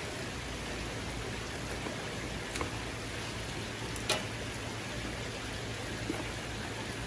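Steady rushing hiss at the crawfish boil pot, with a few light clicks; the sharpest click comes about four seconds in.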